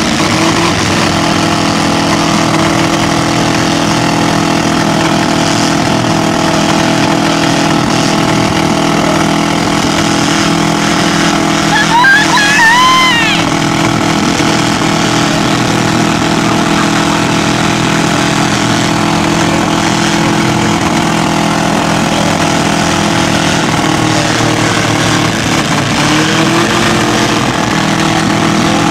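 Engines of small four-cylinder demolition derby cars running together in a steady, loud drone. About twelve seconds in there is a brief rising whoop.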